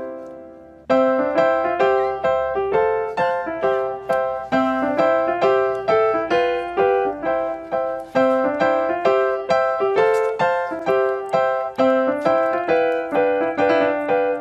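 Background piano music: a steady run of struck notes with a short break just under a second in.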